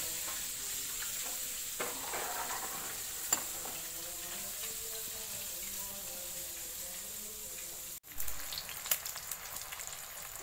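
Egg frying in hot oil in a pan: a steady sizzling hiss that cuts out abruptly about eight seconds in, then resumes with crackles and pops.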